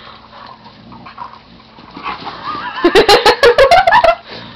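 Dog yelping in play-wrestling: a quick run of high, wavering yelps about three seconds in, lasting just over a second.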